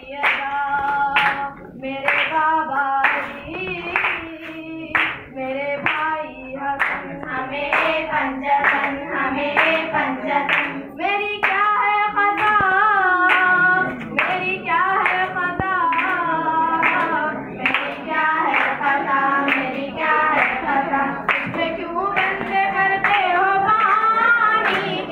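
A female voice singing a song, with hands clapping along in a steady rhythm.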